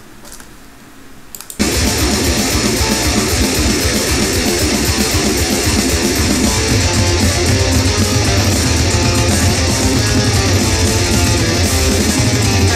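Recorded death 'n' roll heavy metal song, with distorted electric guitars and bass, kicking in abruptly about a second and a half in after a short lull, then running loud and dense throughout.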